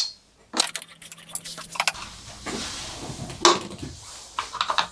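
Small metal parts and tools clinking and jangling in irregular handling sounds while hands work on a bicycle's crank and pedal.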